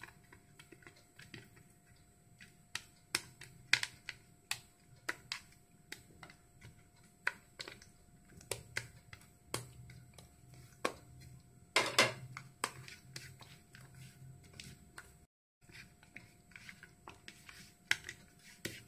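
Faint, irregular clicks and taps of fingers and fish steaks against a ceramic plate as the fish is rubbed with pepper, salt and lemon juice, with one louder knock about twelve seconds in.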